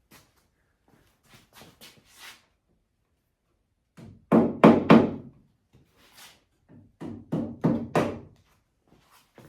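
Sharp knocks in two quick runs: three strikes about four seconds in, then four more about three seconds later, with faint taps and clicks between.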